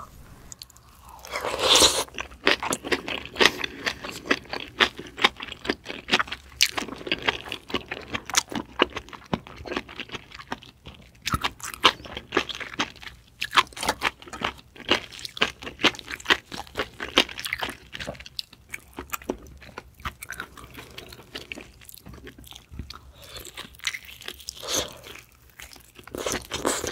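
Close-up mouth sounds of someone chewing and biting scallop meat, a Yesso scallop: a steady run of short, irregular wet clicks, with the loudest cluster about two seconds in.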